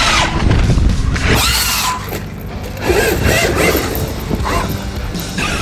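Electric motors of radio-controlled trucks whining, the pitch rising and falling in short arcs as the throttle is blipped, over rough low rumble from the tyres on dirt.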